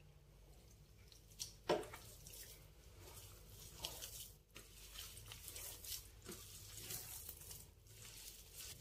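A hand squishing and kneading a moist mix of cooked rice, flour, chopped onion and coriander in a steel bowl, in soft irregular squelches and scrapes, with one sharper knock about two seconds in.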